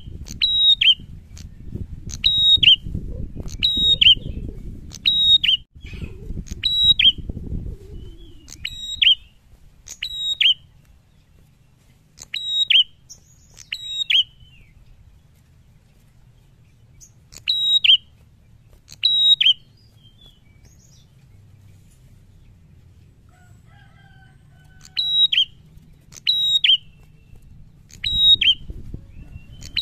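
A caged prenjak calling: loud, sharp high notes that drop at the end, repeated about once a second in runs with pauses between them. A low rustling rumble lies under the first several seconds and comes back near the end.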